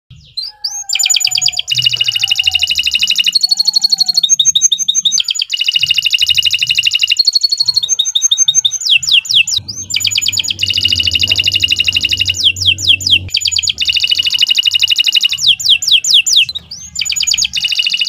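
Domestic canary singing a long, loud, near-continuous song of rapid rolling trills, phrase after phrase with only brief breaks, some phrases made of quick rising and falling sweeps.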